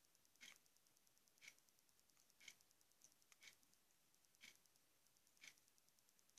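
Near silence with faint, even ticks about once a second.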